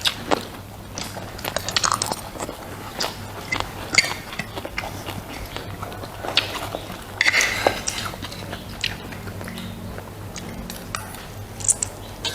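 Close-miked eating: a person biting and chewing food, with irregular crisp crunches and mouth clicks.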